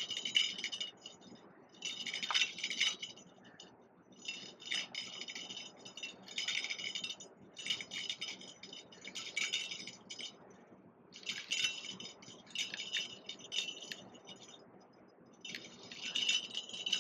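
Fishing reel ratcheting in repeated bursts about a second long, with a carp hooked and pulling on the line.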